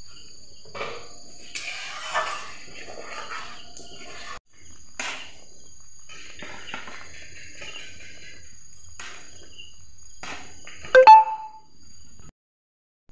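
Steel ladle scraping and stirring thick curry gravy in an aluminium kadai, with scattered clicks against the pan. About eleven seconds in, an aluminium lid is set down on the pan with a loud, briefly ringing clang. A steady high-pitched tone runs underneath.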